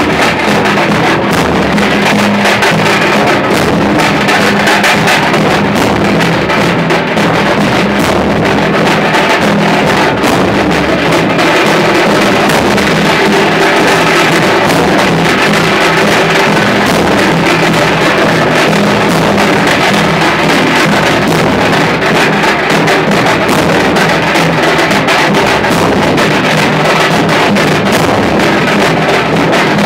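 A group of dhols, large stick-beaten barrel drums, played together loudly and without a break, with a steady low ringing tone underneath the beating.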